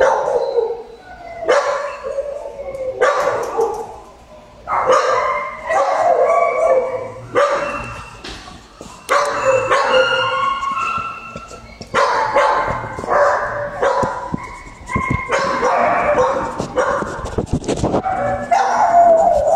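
Dogs barking repeatedly in shelter kennels, a new bark every second or two.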